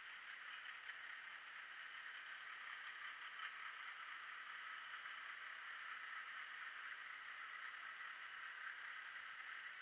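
Faint steady hiss with no distinct sounds in it.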